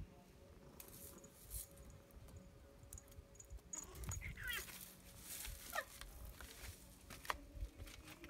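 A pet's short high-pitched cries, a few around four seconds in and another near six seconds, over faint knocks and rumble.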